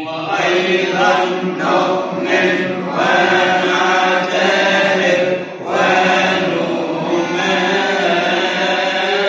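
A deacon chanting a Coptic liturgical response in a long, melismatic line of held notes that slide between pitches, with only brief breaths between phrases.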